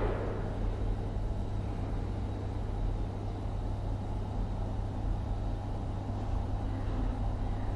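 Steady office background ambience: a constant low hum and rumble with no distinct events.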